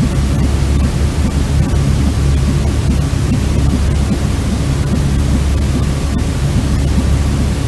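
Steady white noise, a continuous hiss heavy in the low end, played as a sleep sound for soothing a crying baby.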